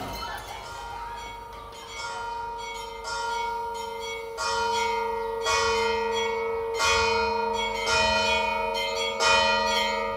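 Church bells tolling on a film soundtrack, played through a home-theatre speaker system and picked up by a phone microphone in the room. There are about seven strokes, coming roughly once a second or a little slower, and each one rings on into the next.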